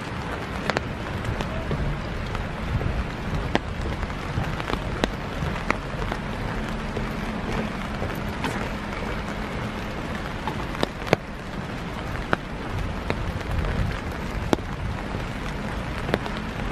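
Steady rain falling, with scattered sharp drip-like ticks at irregular intervals over a low, uneven rumble.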